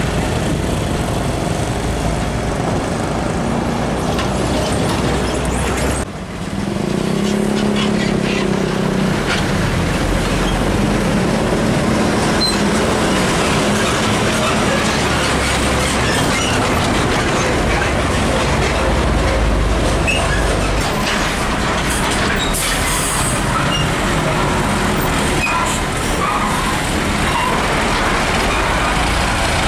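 Diesel container trucks' engines running as they pull past close by, over steady road-traffic noise. The sound drops briefly about six seconds in, then picks up again with the engine note of the next truck.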